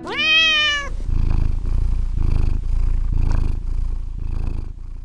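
Domestic cat giving one short meow that rises in pitch, then purring in a steady pulsing rhythm, a little under two pulses a second, which fades near the end.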